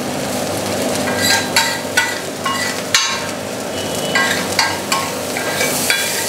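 Goat brain (magaz) frying in desi ghee on a large flat tawa griddle, sizzling steadily. From about a second in, a spatula strikes and scrapes the tawa in a series of irregular ringing clanks, the cook's typical tak-tak on the griddle.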